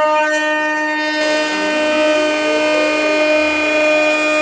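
X-Carve Pro CNC router's spindle whining steadily as the bit mills a plastic pickguard sheet. The whine holds several steady tones, and its sound shifts about a second in.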